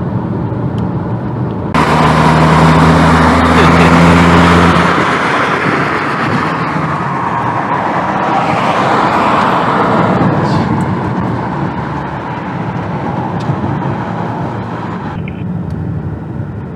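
Wind and road noise of a car driving, jumping suddenly louder about two seconds in and dropping back suddenly near the end, with a steady low engine hum for a few seconds after the jump.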